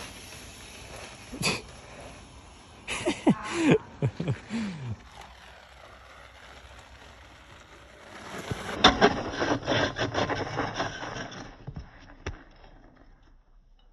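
Handheld phone clips of BMX riding, with wind on the microphone. There is a clack, a few short falling-pitch sounds about three to five seconds in, and then a BMX bike crashing and scraping across icy snow, a dense clatter lasting about three seconds.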